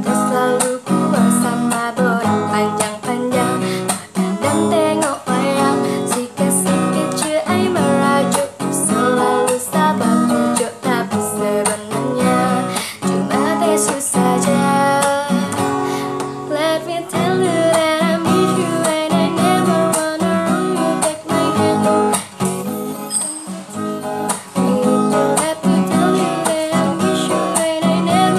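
A woman singing a song to her own strummed acoustic guitar accompaniment.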